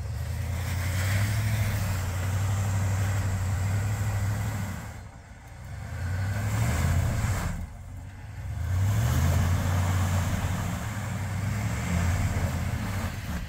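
Ram 1500 pickup's engine revving in uneven surges as the truck crawls through slushy snow and mud, dropping off briefly about five seconds in and again about eight seconds in.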